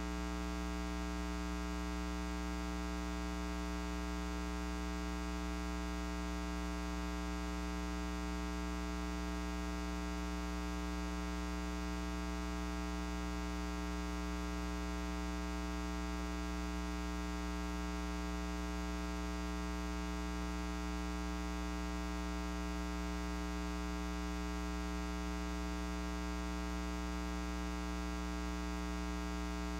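Steady, buzzy electrical mains hum with many overtones, unchanging throughout and with no other sound over it.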